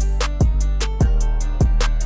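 Background music: a steady beat with a deep kick drum about every half second over a held bass line, with guitar and light cymbal ticks.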